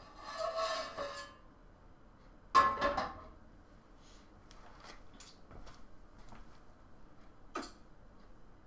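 A frying pan scraping on a gas stove's grate as it is tilted to spread oil, then set back down with a loud metal clatter about two and a half seconds in. A few faint ticks follow.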